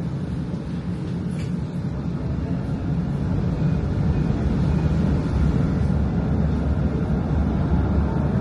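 Steady low rumble of a light-rail car running, heard from inside the cabin, growing a little louder through the stretch.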